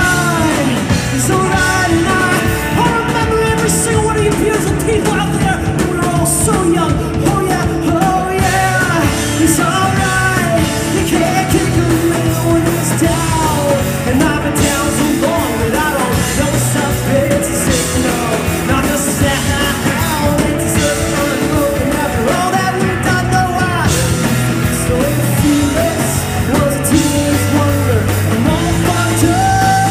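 Live rock band playing at full volume: electric bass, drum kit and electric guitar, with a voice singing over them.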